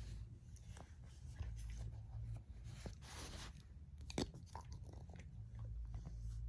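Close-up handling of a fragrance box and bottle: scattered small clicks and rustles, a brief hiss-like swish about three seconds in, and one sharper click a little after four seconds, over a low steady hum.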